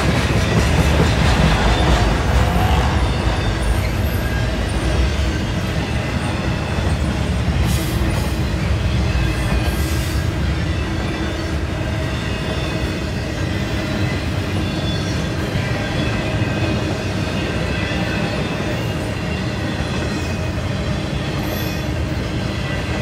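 CSX Q009 intermodal freight train rolling slowly past, its cars rumbling and clattering on the rails with thin steady squealing tones from the wheels. It is a little louder for the first few seconds, then steady.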